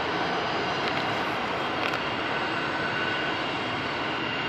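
A Boeing 747's jet engines running steadily as the airliner moves along the runway: an even noise with a thin high whine held throughout.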